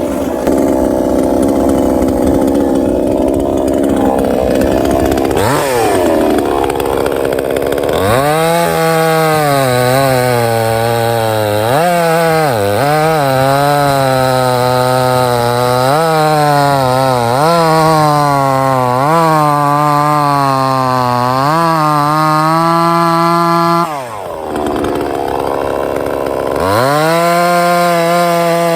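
58 cc two-stroke chainsaw cutting into wet soft maple, its engine note sagging and recovering every second or two as the chain loads up in the cut. About 24 s in it drops off briefly, then revs back up.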